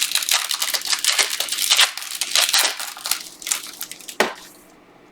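A trading-card pack's wrapper being torn open and crumpled, a dense run of crackling and crinkling that stops with a last sharp crackle about four seconds in.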